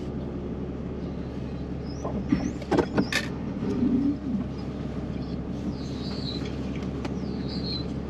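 Vehicle engine and road noise heard inside the cab while driving slowly, a steady low hum. A few sharp clicks come between about two and three seconds in, and brief faint squeaks come now and then.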